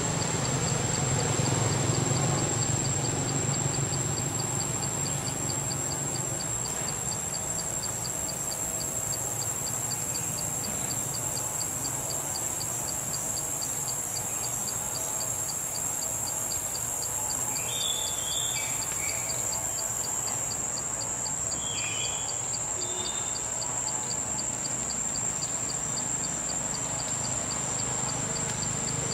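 Chorus of forest insects such as crickets or cicadas: one high, unbroken whine with a rhythmic chirping pulse repeating several times a second beneath it. A few short chirps come about two-thirds of the way through.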